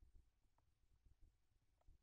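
Near silence: a faint low rumble with a few soft ticks.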